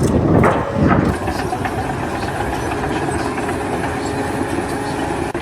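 Steady rumble of a heavy engine running, with louder rough surges in the first second.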